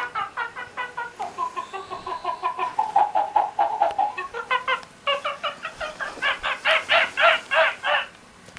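Sound chip in a plush monkey dog toy playing rapid, pitched monkey chatter, about five calls a second, with a run of falling tones in the middle, set off as the puppy bites and squeezes it.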